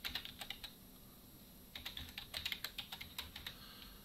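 Typing on a computer keyboard: quick keystrokes in two runs, with a pause of about a second between them.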